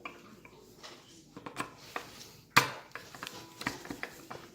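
Small metal clicks and taps of an Allen wrench and tiny screws being worked out of a light housing, with one louder clack about two and a half seconds in.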